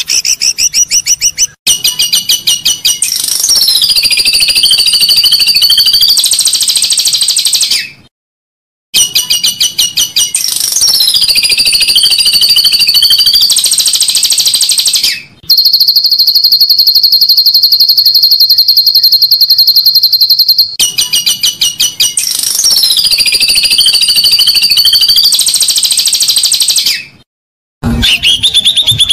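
Edited recording of songbird song for tutoring a captive bird: the same phrase plays three times, a run of rapid high chirps followed by a falling warbled run. Between these plays one long, steady, very fast trill of about five seconds. Each segment starts and stops abruptly, with short gaps of silence between them.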